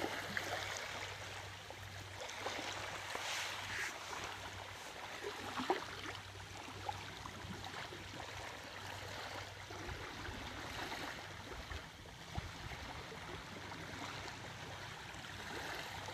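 Small waves lapping and washing gently onto a sandy shore, with faint trickling and splashing at the water's edge.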